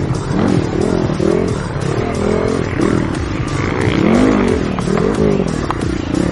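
Dirt bike engines revving up and down over and over, the pitch rising and falling about once a second, with two bikes overlapping at times.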